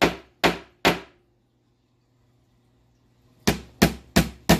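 Claw hammer striking a small metal pin into the pre-drilled hole of a cabinet side panel: three quick, sharp blows, a pause of about two seconds, then four more at about three blows a second.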